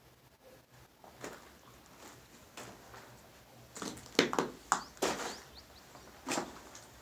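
Footsteps and scuffs on a rubble-strewn concrete floor, with a cluster of sharp crunches in the middle and another near the end.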